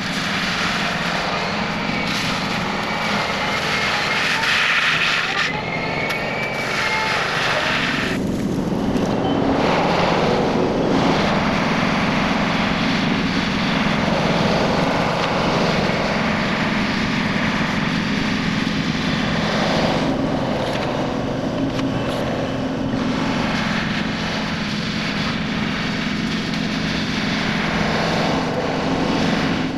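Takeuchi machine running an FAE forestry mulcher head: a steady engine drone under load, with the rushing noise of the mulcher cutting through brush and debris swelling and easing several times.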